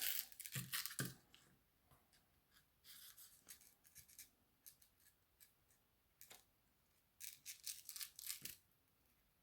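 Craft supplies being handled on a work surface: three spells of short scratchy rustling, with a few light knocks in between.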